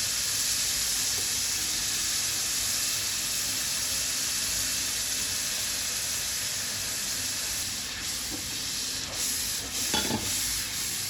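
Onion, tomato and spice masala sizzling in hot oil in a cooking pot, a steady hiss that eases a little after about eight seconds. A few short knocks of a stirring spoon near the end.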